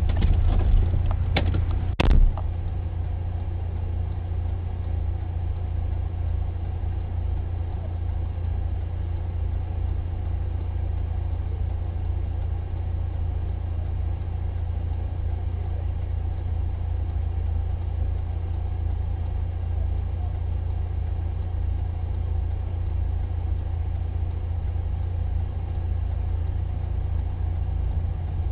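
Steady low rumble of a car engine idling, heard from inside the stationary car's cabin. A few sharp knocks come in the first couple of seconds, the loudest about two seconds in.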